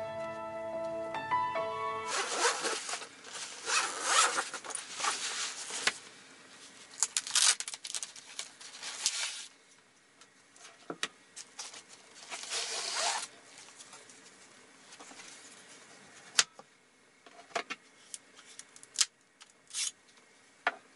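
Background music ends about two seconds in; then the zipper of a fabric knife case is pulled open in several rasping runs, with another zip a few seconds later. Near the end, a few light clicks and knocks as a knife and cutting board are handled.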